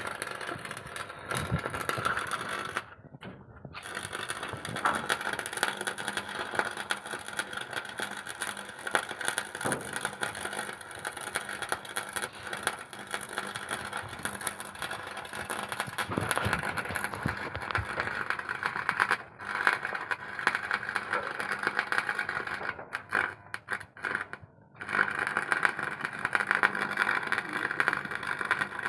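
Electric welding arc crackling and sputtering steadily. It breaks off briefly a few times, about three seconds in, around nineteen seconds in, and again around twenty-three to twenty-five seconds in.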